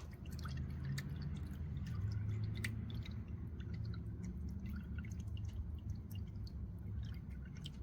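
GAIZERL 3.5 W solar fountain pump running without a nozzle attachment: a low burble of water welling up, with many small drips and splashes falling back.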